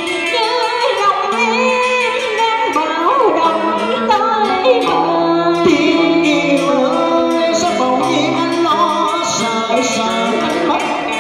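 Vietnamese cải lương singing with electric guitar accompaniment, the melody lines wavering in pitch.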